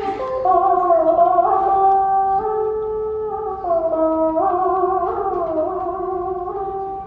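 Đàn bầu, the Vietnamese one-string monochord, playing a slow lullaby melody: held notes that step and slide in pitch, with a plucked attack right at the start.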